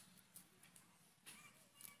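Near silence, with about three faint short scrapes as small spotted snakehead fish are scaled against the iron blades of bontis, the curved floor-mounted cutting blades.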